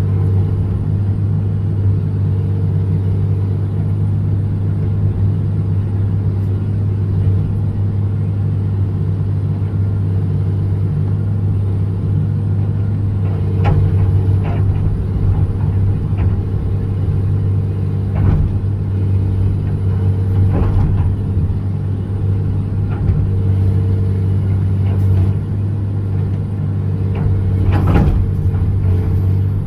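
John Deere 200LC (Hitachi EX200) excavator's diesel engine running steadily while the machine digs, with several sharp knocks and scrapes as the bucket and its teeth work at a tree root. The loudest knock comes near the end.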